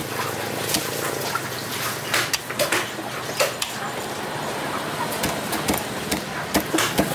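Large knife cutting and chopping through a snapper's head on a wooden chopping block: irregular sharp knocks and clicks as the blade strikes bone and wood, over steady background noise.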